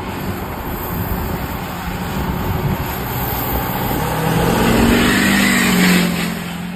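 Car driving on a wet road: steady tyre hiss and road noise that swells to its loudest about five to six seconds in as a pickup truck draws close alongside, with an engine hum rising slightly, then eases off.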